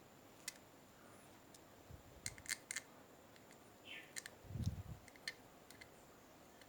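Small tools and parts being handled on a workbench: scattered sharp clicks and taps, a quick run of them about two and a half seconds in, and a soft thump about four and a half seconds in.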